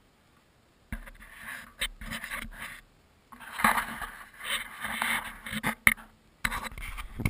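Irregular bursts of scraping and rubbing, with a few sharp clicks in between, starting about a second in.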